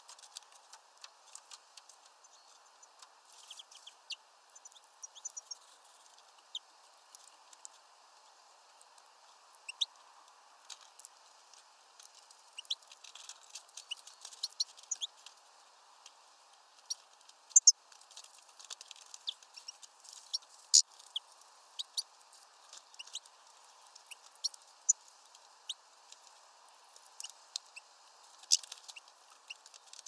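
European goldfinches and greenfinches feeding at a hanging mesh bag of peanuts: irregular sharp, high-pitched ticks and clicks of pecking and scrabbling, sparse at first and coming thicker in the second half.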